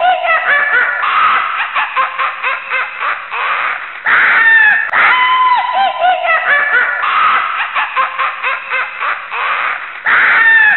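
Horror sound effect of many eerie voices laughing and shrieking over one another, looping and repeating over and over.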